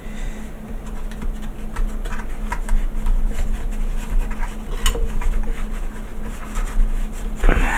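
Fingers pressing and working Blu Tack into the corners of a small mould box: scattered soft clicks, taps and rubbing over a steady low hum.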